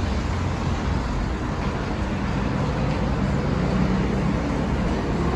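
Steady city street noise: a constant rumble of passing traffic.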